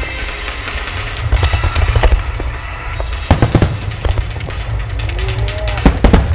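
Aerial fireworks shells bursting over loud accompanying music, with a deep continuous rumble and clusters of sharp bangs and crackles about halfway through and again near the end.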